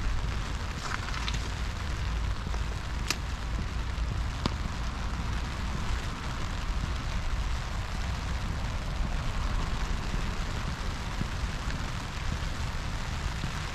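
Steady rain falling, with a low rumble underneath and a few sharp ticks in the first few seconds.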